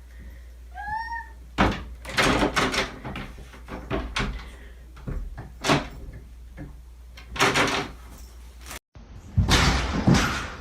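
A short, high animal call about a second in, then a string of sharp knocks and bangs, like a door or cupboard being knocked or shut.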